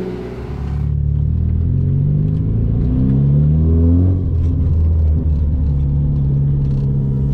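Mitsubishi Lancer Evolution VIII's turbocharged four-cylinder engine pulling as the car accelerates, its note climbing for about three seconds. The pitch drops about four seconds in and then holds steady.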